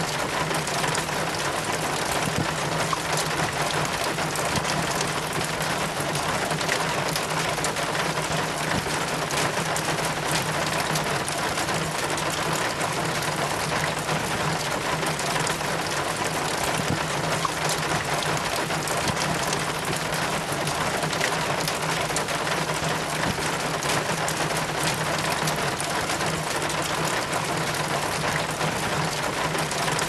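Steady rain, with rainwater trickling and dripping down a metal rain chain as a dense patter of small drops. A faint steady low hum sits underneath.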